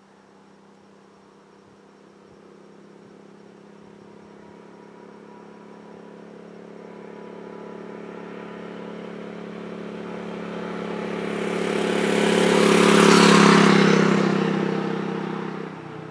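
Suzuki dual-sport motorcycle approaching along the road and passing by. Its engine note starts faint and grows steadily louder, peaks with tyre and wind rush about thirteen seconds in, then fades and drops off near the end.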